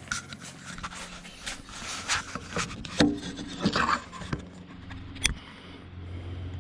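Handling noise from the phone: close rubbing and scraping on its microphone, with a couple of sharp knocks about three seconds in and again about two seconds later.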